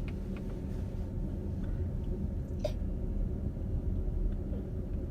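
Steady low rumble of a car's engine and road noise heard from inside the cabin while driving, with one short sharp click a little past halfway.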